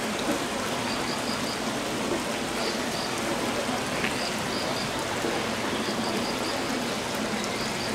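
A steady rushing noise, with faint high chirps coming in quick runs of three or four every second or so.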